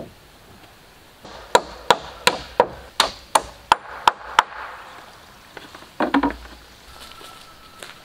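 Wood being chopped: nine sharp blows in quick, even succession, about three a second, then a short clatter of knocks about two seconds later.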